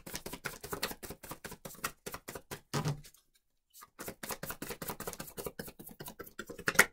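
Tarot deck being shuffled by hand: a fast patter of cards slapping together, about eight to ten a second. It pauses briefly about three seconds in, then resumes, with a sharper snap just before the end.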